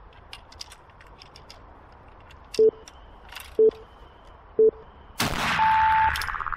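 Light clicks of the rifle's breech being worked and loaded, then three short timer beeps a second apart. A shot from a Werndl M1867/77 rifle firing a black-powder 11.15x58R cartridge follows about five seconds in, with a long echoing tail, while a longer, higher beep marks the end of the timed minute.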